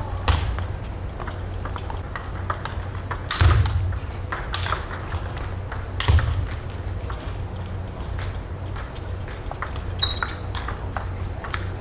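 Table tennis balls clicking sharply and irregularly as they are struck and bounce on the tables, with a few louder knocks, over a steady low hum. Two short high squeaks come about six and a half seconds and ten seconds in.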